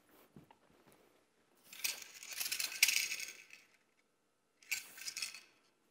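A wushu spear being swung through a turn and thrust out one-handed: a longer burst of swishing and rattling about two seconds in, and a shorter one near the end.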